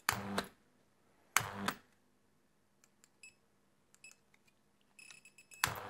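Buttons clicked on a radio remote control to pair it with a tubular shutter motor, with several short, high electronic beeps in the second half answering the presses. Two brief louder bursts come near the start, about a second apart, and another just before the end.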